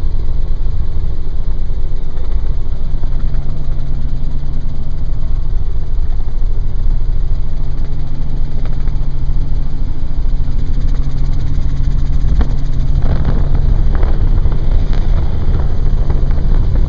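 Helicopter engine and rotor noise heard from inside the cabin, a loud, steady drone in flight.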